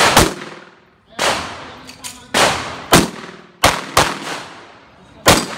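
Handgun shots fired in an irregular string, about eight in all, each a sharp report trailing off in echo.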